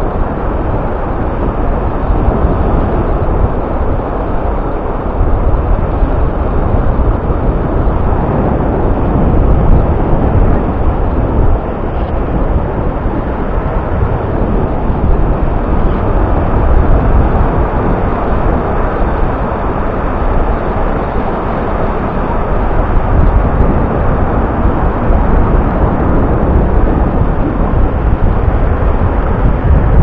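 Steady rush of Black Sea surf breaking and washing up the beach, still rough after a storm, mixed with wind buffeting the microphone.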